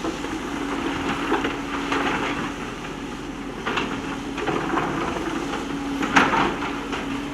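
JCB backhoe loader's diesel engine running with a steady hum, while stones knock and clatter against the steel bucket in irregular bursts, the sharpest knock about six seconds in.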